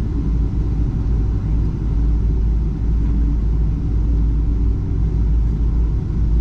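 Steady low rumble inside the cabin of a Boeing 777-300 airliner: engine and airflow noise with no change in level.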